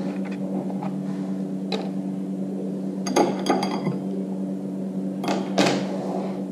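Light clicks and knocks of small parts being handled on a wooden tabletop, laser-cut plywood plates and steel screws and nuts, with a brief metallic clink about three seconds in and two more knocks near the end. A steady low hum runs underneath.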